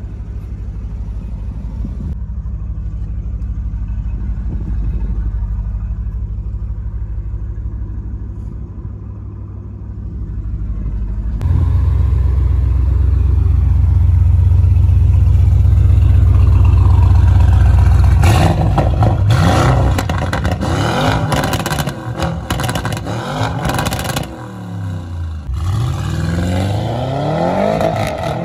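Tuned Audi RS7's twin-turbo V8 through a straight-piped Milltek exhaust: a steady deep idle, louder from about 11 seconds in, then from about 18 seconds repeated revs rising and falling, and near the end the car accelerating away.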